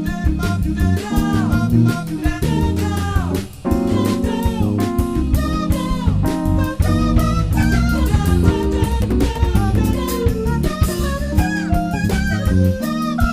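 Background music: a live jazz-funk band playing over drums and bass.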